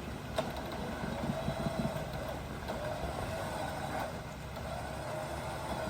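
Off-road vehicle engine running steadily at low revs while crawling over rock, with a faint wavering whine riding over it that dips near the end.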